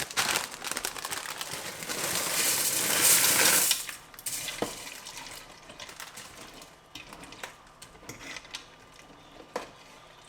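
Cooking in a pot: a loud rush of scraping, stirring noise for about four seconds, then scattered clinks and knocks of a utensil against the pot.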